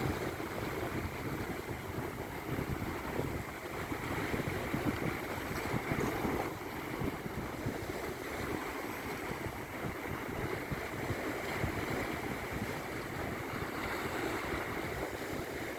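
Sea surf washing onto a sandy beach, a steady rush of waves with no single break standing out, with wind buffeting the microphone.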